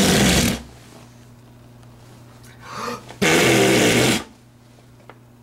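An adult blowing raspberries on a baby's bare belly: one loud blow ending about half a second in, then a quick breath in and a second blow lasting about a second, about three seconds in.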